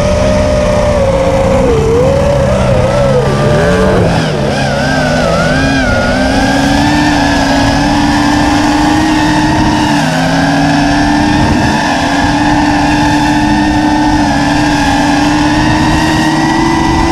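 Radio-control aircraft engines and propellers running in flight, loud and steady. The pitch wavers up and down with throttle changes for about the first four seconds, then holds steadier and slowly climbs.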